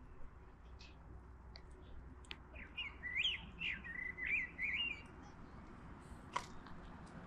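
A small songbird singing one short phrase of quick rising and falling chirps, over faint steady background noise. A single sharp click comes near the end.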